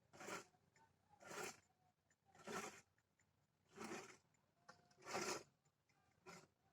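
Rhythmic scraping strokes on a surface, each short and coming about once every second.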